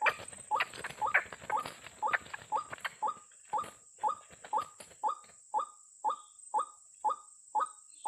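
White-breasted waterhen (ruak-ruak) calling: a short rising note repeated steadily about twice a second, with a more cluttered, denser stretch in the first two seconds or so.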